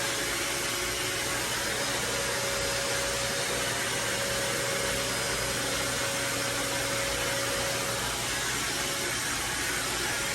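Vacuum cleaner running steadily: an even hiss of rushing air with a thin motor whine that fades about eight seconds in.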